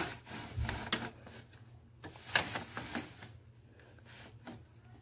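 Plastic dollhouse and Barbie doll being handled: scattered light clicks, knocks and rustles, with a brief low thump under a second in and the sharpest knock about two and a half seconds in.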